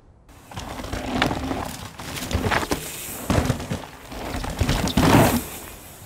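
Mountain bike ridden along a dirt trail: clicking and rattling from the bike's freehub and drivetrain, with tyre noise, in uneven surges that are loudest about five seconds in.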